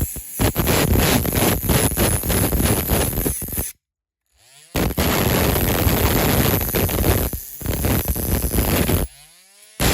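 Rotary tool cutting into a diecast metal base plate, a loud gritty grinding that stops briefly twice as the motor spins down and starts again.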